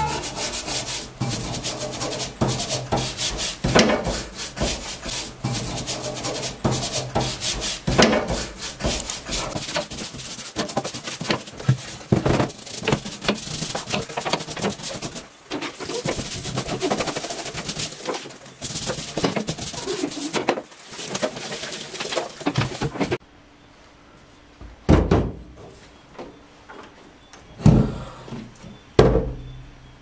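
Stiff plastic dish brush scrubbing a gas cooker's metal pan support in a stainless steel sink, in quick rasping strokes. About 23 seconds in the scrubbing stops, and a few separate knocks follow.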